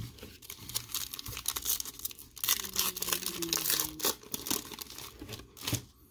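Clear cellophane wrapper of a small trading-card pack being torn open and crinkled, an irregular run of crackles and rips that is thickest in the middle.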